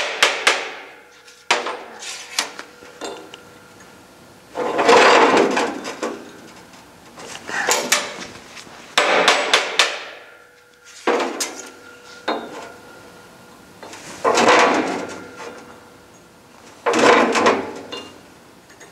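Hammer tapping a steel pipe tack-welded to a flange, knocking it gently into square with the flange: clusters of light metallic taps every couple of seconds, each with a brief ring from the pipe.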